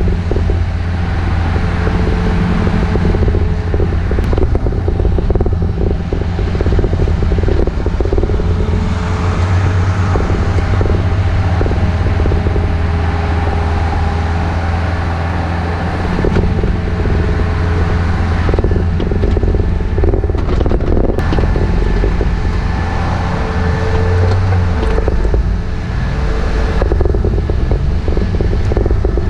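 Compact excavator's diesel engine running steadily under load, a deep hum with steady higher tones that come and go.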